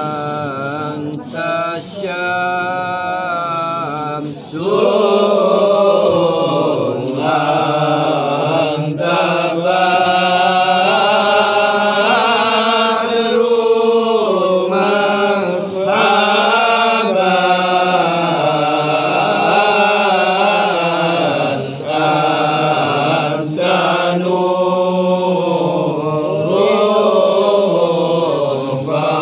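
A group of men chanting Arabic selawat in praise of the Prophet (marhaban) together in one melody, with long held, wavering lines. The chant grows louder about four and a half seconds in.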